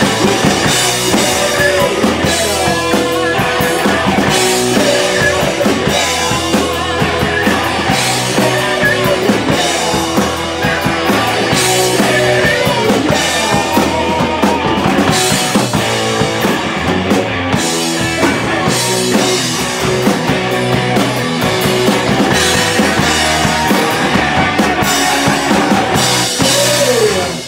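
Live rock band playing loud, with a full drum kit driving the beat, bass drum and rimshot hits over bass and guitar.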